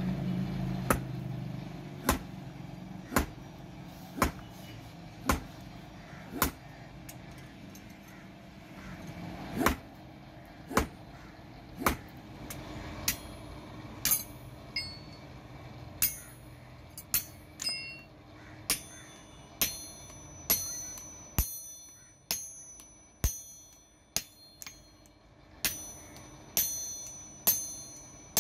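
Hammer blows on a hot leaf-spring steel axe head on an anvil, about one a second with a short pause early on. The later blows ring with a bright metallic ping.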